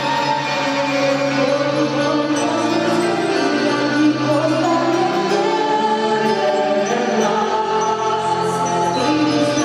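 Live song played on electric guitar and keyboard, with a voice singing the melody over held chords from a few seconds in.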